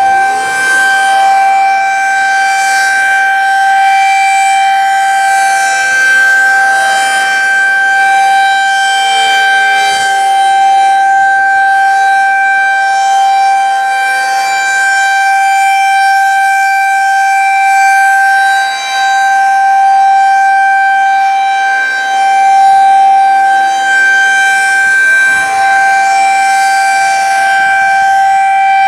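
Federal Signal 2001-SRN electronic outdoor warning siren sounding a steady alert signal: one continuous, unusually high-pitched tone that swells and dips slightly as its rotator turns the horns. Older mechanical sirens wail up and down faintly in the background, sounding the attack signal.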